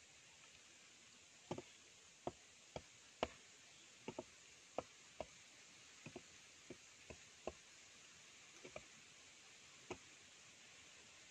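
Faint, irregular sharp knocks, about seventeen spread over eight seconds, from a man digging at the ground with a hand tool.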